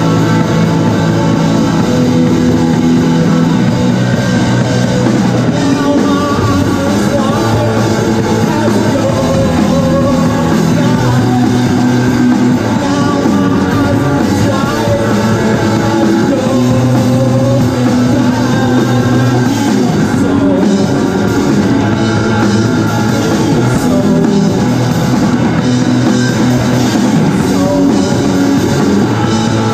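Rock band playing live on a drum kit and electric guitars, loud and steady.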